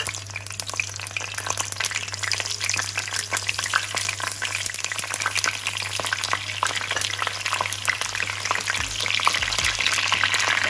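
Long green peppers frying in hot oil in a pan: a steady, dense crackling sizzle that grows louder near the end, when a wooden spoon and spatula start turning them with a few soft knocks.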